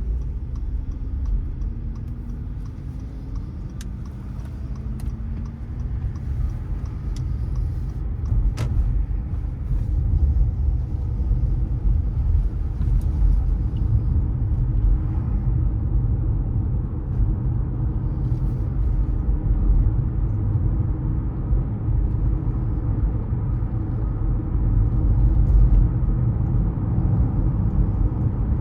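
Car driving on city streets, a steady low rumble of engine and tyre noise. In the first few seconds the engine note rises as the car accelerates, and there are a couple of faint clicks.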